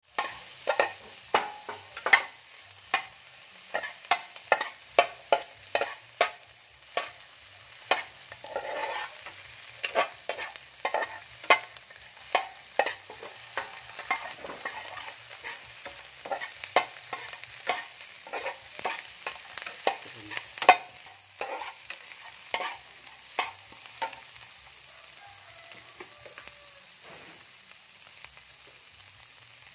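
Metal spatula scraping and knocking against a metal pan as small shrimp are stirred while roasting, over a light steady sizzle. The strokes come irregularly, about one or two a second, and thin out over the last few seconds.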